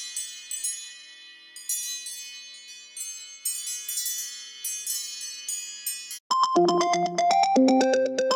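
Phone ringtone of high, tinkling chime notes in repeated clusters, cutting off about six seconds in. After a brief gap a different ringtone starts: a quick, rhythmic synth melody.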